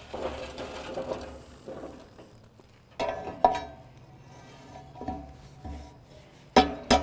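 A hot steel fire basket scrapes down into a drum grill's opening. Then a round metal cooking grate is set into the opening with a lifter rod, clanking metal on metal several times, with the two loudest clanks near the end.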